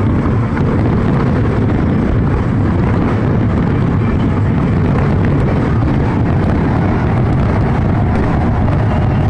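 Dense barrage of aerial firework shells bursting, the booms running together into a steady, loud low rumble.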